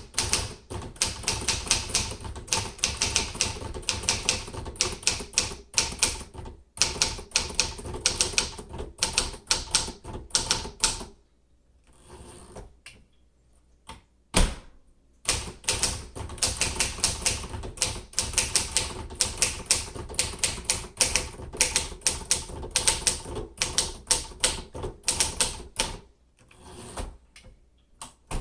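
1957 Remington Rand Quiet Riter manual typewriter being typed on: quick runs of key strikes, with a pause of a few seconds near the middle broken by one sharp strike, and a few scattered strokes near the end.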